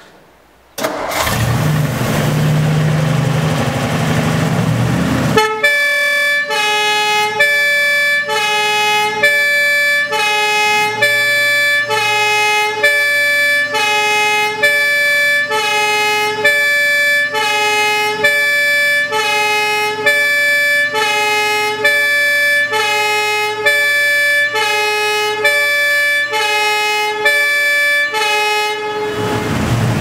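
Two-tone siren of a vintage Ford F600 fire engine, very loud, switching between a high and a low note about every half second for over twenty seconds, peaking around 115 decibels a few metres in front of the truck. It is preceded by about four seconds of loud rushing noise with a low hum as it starts, and a rushing noise fades out at the end.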